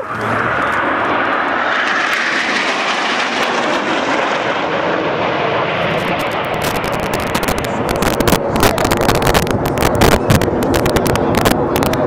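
Formation of Canadair NF-5 jet fighters flying overhead: broad jet-engine noise that brightens over the first few seconds, then turns into a rougher, crackling rumble from about six seconds in.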